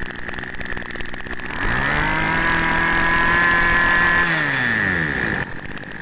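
Yanmar two-stroke brush cutter engine running at idle, revved up once to a high steady whine for a couple of seconds, then let back down to idle.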